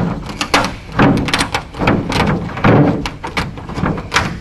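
Aviation snips cutting through a fiberglass cowling: a quick, uneven series of sharp snips, about two to three a second, as the blades close through the fiberglass.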